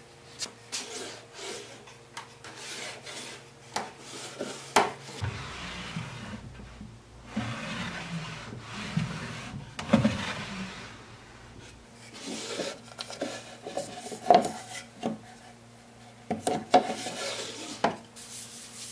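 Wooden drawers of a pine chuck box sliding out and in, wood rubbing on wood, with sharp knocks and clicks as the drawers and the fold-down lid are handled.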